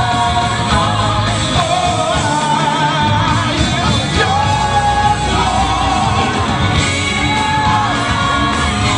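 Gospel choir singing with a live band, the voices holding long notes over a steady bass.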